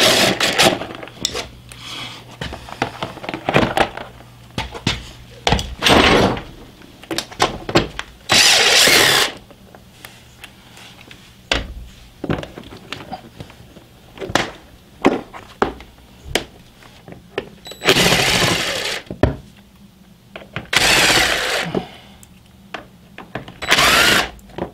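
Cordless DeWalt impact driver running in several short bursts of about a second each, hammering the side-panel bolts out of a Suzuki DR650, with clicks and knocks of parts being handled between the bursts.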